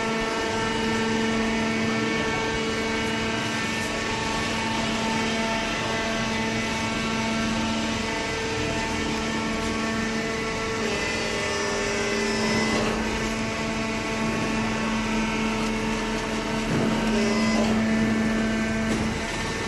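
Hydraulic baler's power unit running, a steady mechanical hum and whine with several held tones. The tones shift a little around the middle and it grows slightly louder near the end.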